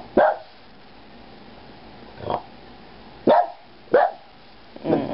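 Boston Terrier giving five short, sharp barks at uneven intervals, about a second apart near the end. These are alert barks at fireworks going off too far away for people to hear.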